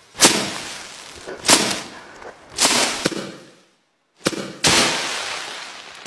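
Dry straw being struck and flung in a heap: five sharp swishing crashes, the last two close together, each trailing off in a rustle of straw.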